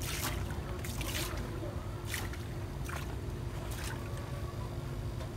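Green algae water tossed from a cup onto the surface of a brine shrimp (artemia) culture tank: about five splashes roughly a second apart, over a steady low hum.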